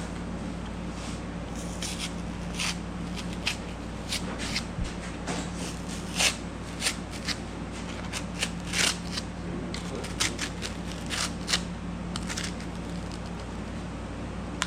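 A small knife sawing and slicing through cured expanding spray foam, trimming it off flush: a run of irregular short scraping strokes.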